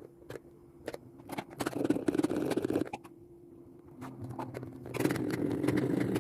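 Light scraping and clicking of small objects being handled, over a faint steady hum.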